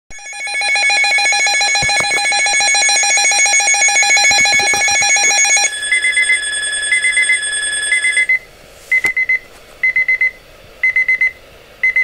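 Midland weather alert radio sounding its alert for an incoming warning broadcast. A loud, fast-pulsing alarm tone runs for almost six seconds, then a steadier high tone, then short high beeps repeating about once a second.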